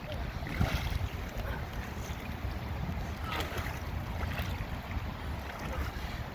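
Floodwater swirling down a freshly unclogged storm drain in a whirlpool, with wind buffeting the microphone. A few brief sharper noises break through about half a second in and again around three and a half and four and a half seconds in.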